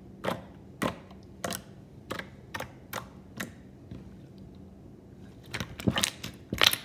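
Fingertips poking a thick white jiggly slime, each poke a sharp clicky pop, about two a second. Near the end a quicker, louder run of pops follows.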